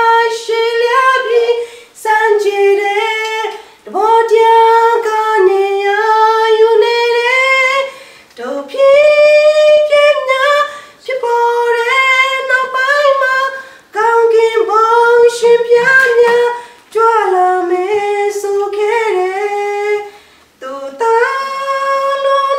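A young woman singing solo and unaccompanied, in phrases of a few seconds with held notes and short breaks for breath between them.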